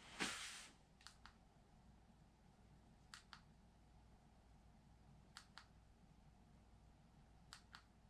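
A brief rustle of handling just after the start, then a headlamp's push button clicked four times about two seconds apart, each press a quick double click.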